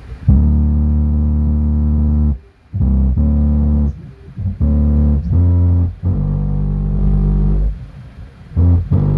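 Bass-heavy music through a subwoofer: long, loud, held low notes that cut off and start again every second or two, with little above the bass. About six seconds in the notes drop lower.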